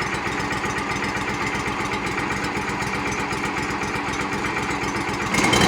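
Backhoe engine idling steadily, getting louder just before the end.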